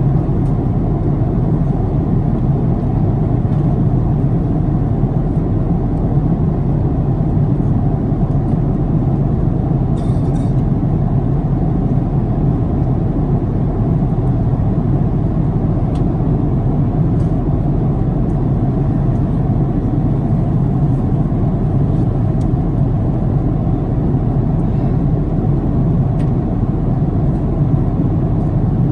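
Steady cabin noise of an Airbus A330neo in cruise at about 11,600 m: a constant deep roar of airflow and engine drone, unchanging throughout.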